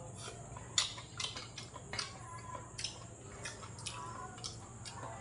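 Close-up chewing of a mouthful of food: irregular wet mouth clicks and lip smacks, several a second, over a steady low hum.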